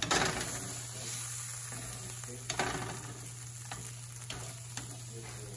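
A squashed tomato frying in a pan with a steady sizzle, while a plastic spatula swishes it around, making a few light knocks against the pan.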